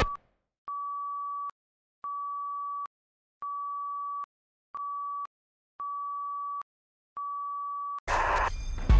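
Six electronic beeps at one steady pitch, each under a second long, with short silences between; the fifth is shorter than the rest. Near the end a loud, noisy sound cuts in.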